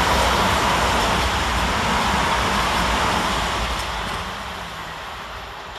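Southern Class 377 Electrostar electric train of two coupled units passing through: a steady rush of wheels on rail and air that fades away over the last couple of seconds as the train draws off.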